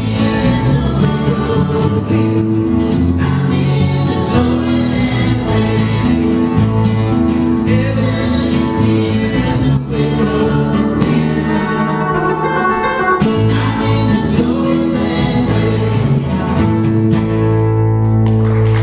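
Live band playing a country-gospel hymn on acoustic guitar, electric guitar and electric bass, with voices singing. It closes on a long held final chord near the end.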